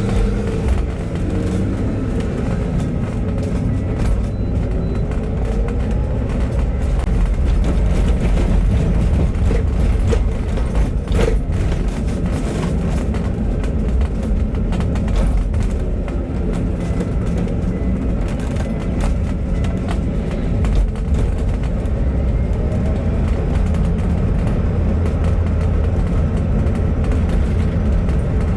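A bus running along the road: steady engine and road rumble, with a single sharp knock about eleven seconds in.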